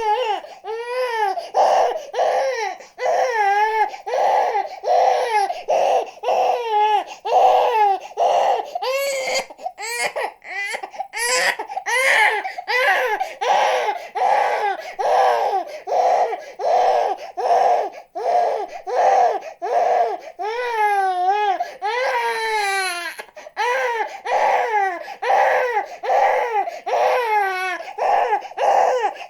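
Infant crying without pause in short rhythmic wails, about two a second, with a few longer, wavering cries in between.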